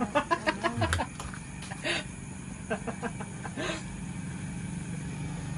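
Motorcycle engine idling steadily, starting about two seconds in. Voices are heard briefly at the start.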